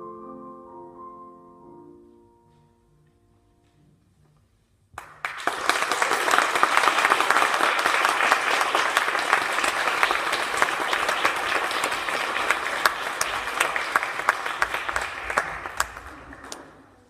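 The final chord of the song dies away, and after about two seconds of hush an audience breaks into applause, dense clapping for roughly eleven seconds that fades out near the end.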